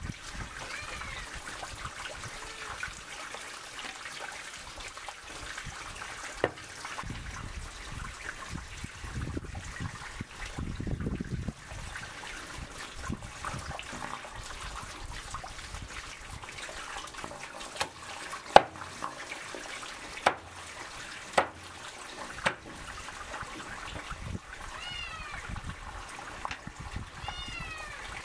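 Water trickling steadily, with about six sharp knocks scattered through the middle, the loudest about two-thirds of the way in. Near the end an animal gives several short, high calls.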